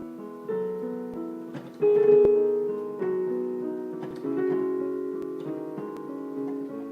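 Piano music: sustained chords and notes struck about once a second, the loudest chord about two seconds in.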